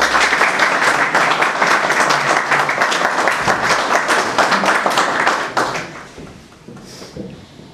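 Audience applauding, then dying away about six seconds in.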